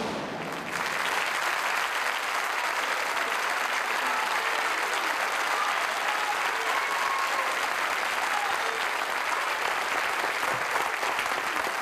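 Studio audience applauding, building up over the first second and then holding steady.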